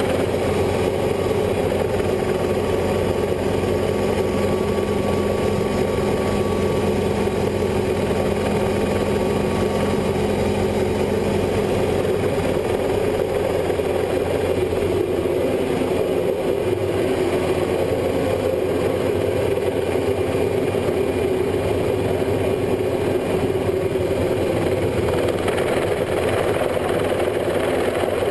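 Mosquito XET ultralight helicopter's turbine engine and rotor running steadily at 100% rpm, ready for takeoff, heard from the open cockpit.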